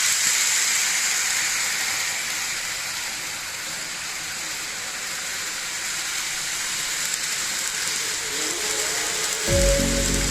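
An N-gauge model train running on its track, heard as a steady hiss-like rolling noise. Background music comes in near the end.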